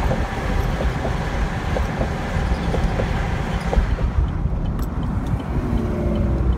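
Steady road and engine noise inside a truck's cab as it drives along a highway: a deep, even rumble of tyres and engine, with a few faint light clicks in the first half.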